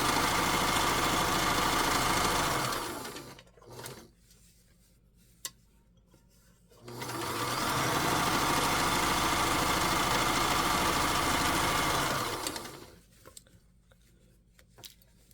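Vintage Kenmore sewing machine running steadily at speed, stitching the side of a fabric strap closed. It stops about three seconds in, a few small clicks follow, then it runs again for about five seconds before stopping near the end.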